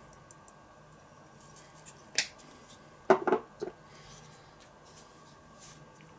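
Spice jar of dried thyme handled and shaken over a bowl of meat: a sharp click about two seconds in, then a quick run of three or four taps about a second later, with faint ticks in between.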